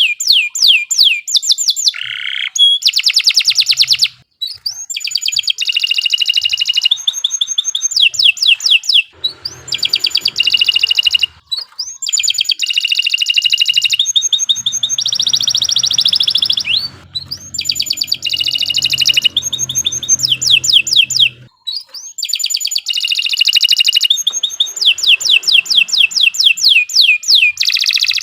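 Domestic canary singing a long, vigorous song: a string of fast repeated trills, each run held for a few seconds before switching to another note, broken by three short pauses.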